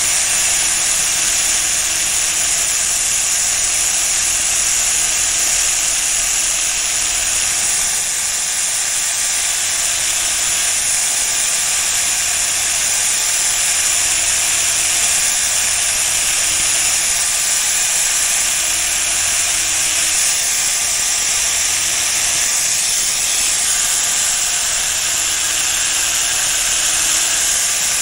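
Steel blade of a pair of tailor's shears being resurfaced with an abrasive: a steady, loud, high sanding hiss, with a faint low hum that comes and goes every couple of seconds.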